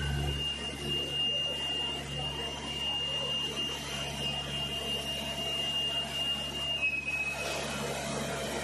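Factory machinery running with a steady low hum, under a continuous high-pitched whine that drops slightly in pitch near the end.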